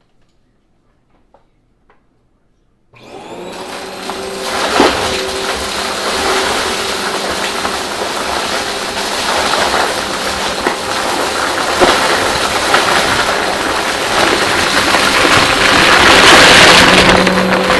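A few faint clicks, then a vacuum cleaner switches on about three seconds in and runs steadily: loud suction noise over a steady motor hum, swelling a little near the end.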